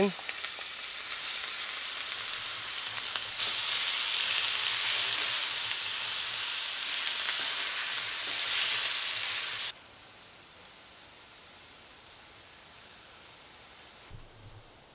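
Chicken pieces and sliced onion sizzling in a Lodge cast iron skillet while being stirred. The sizzle gets louder about three seconds in, then drops off suddenly to a faint hiss near ten seconds.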